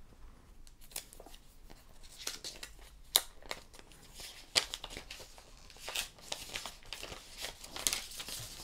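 Thin protective plastic film being peeled off a new smartphone, crinkling and crackling irregularly, with a few sharper crackles.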